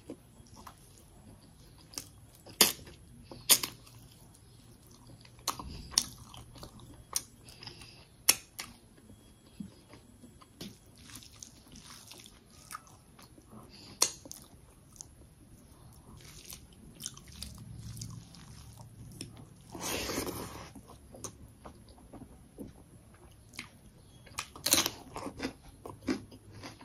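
Close-up chewing and biting of a person eating chicken curry and rice by hand. Scattered sharp smacks and crunches, with one longer noisy sound about twenty seconds in.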